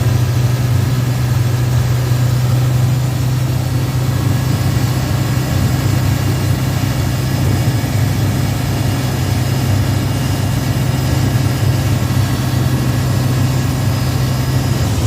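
Isuzu Giga FVZ concrete mixer truck's diesel engine running steadily with a deep, even hum.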